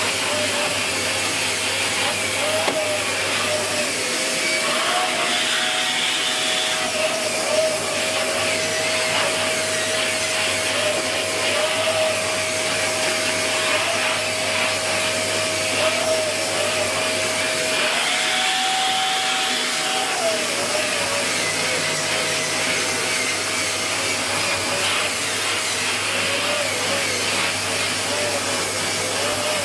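Dyson Big Ball Animal (CY23) cylinder vacuum cleaner running steadily while vacuuming stairs with its tangle-free turbo tool. The motor's whine wavers and rises in pitch twice for a second or two, once about five seconds in and again a little past the middle.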